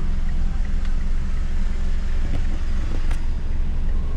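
Steady low hum of a car's engine and road noise heard from inside the cabin as it creeps through slow, congested traffic, with a couple of faint clicks about two and three seconds in.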